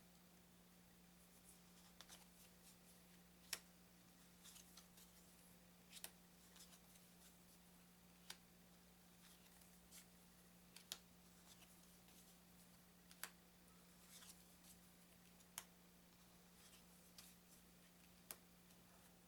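Thin playing cards being set down one at a time on a table: a light, sharp click every two to three seconds over a faint steady hum.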